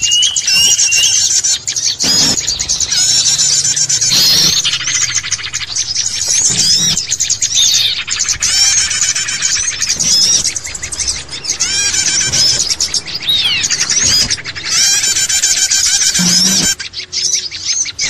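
Dense chorus of many small birds chirping and whistling over one another in quick, overlapping calls: a bird-luring (pikat) recording meant to draw in wild birds.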